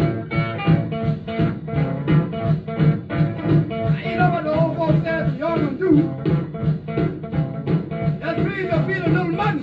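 Vinyl single playing on a turntable: music with a steady, even beat, and a melody line that slides in pitch from about four seconds in.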